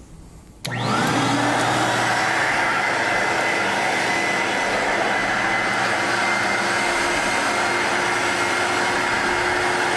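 Portable carpet-cleaning extractor switched on less than a second in, its vacuum motor then running loud and steady with a steady whine, while the Rotovac Powerwand's rotating head works over wet carpet.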